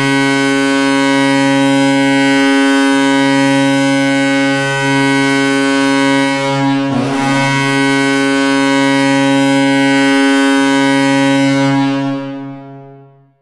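NHL arena goal horn sounding one long, steady blast of several deep notes together, with a brief waver about seven seconds in, then fading away near the end.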